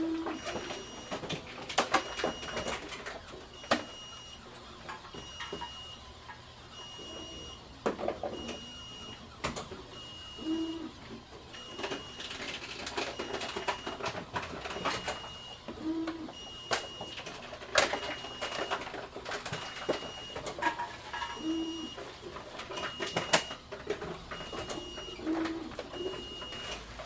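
Grocery store bottle return machine in use: bottles knocking and clattering in it, a short high beep repeating about once a second, and a brief low hum every five seconds or so.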